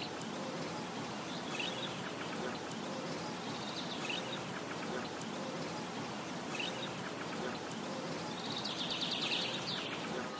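Steady outdoor background noise with a few short bird chirps every couple of seconds and a longer run of chirping near the end.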